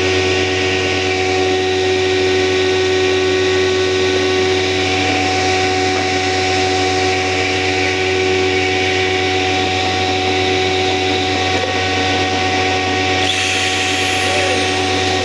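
Electric woodworking power tool running steadily at constant speed, a continuous motor whine with a low hum.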